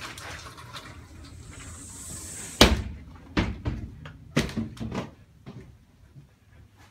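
A door slams shut about two and a half seconds in, with a sharp, loud bang. Several lighter knocks and thumps follow over the next three seconds.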